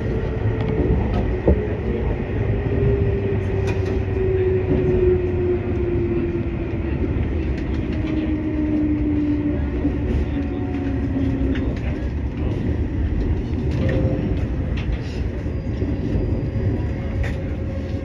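Electric train running slowly into a station, heard from inside: a steady low rumble of wheels on rail, with a motor whine that falls slowly in pitch over about twelve seconds as the train brakes, and scattered light clicks.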